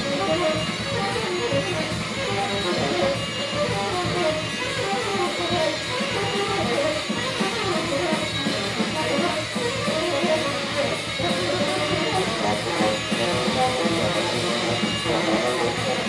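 Free jazz improvisation: a drum kit played busily and continuously under a fast, wandering melodic line that keeps shifting in pitch.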